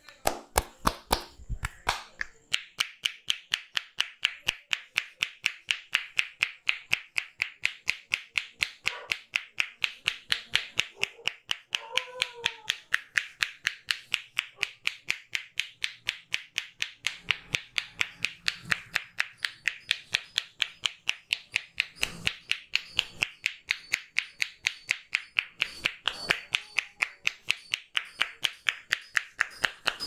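Head-massage percussion: the barber's hands slapping the client's head in a fast, steady run of sharp, clap-like strokes.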